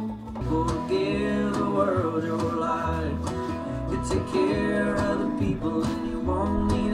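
Background music: a country-style song with guitar and a singing voice.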